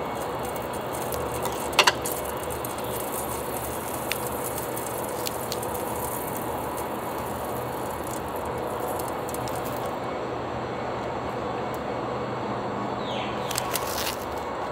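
Food-handling sounds over a steady background hiss: a sharp click about two seconds in, a few light ticks, and the plastic film on a tray of marinated pork belly crinkling near the end as it is picked up.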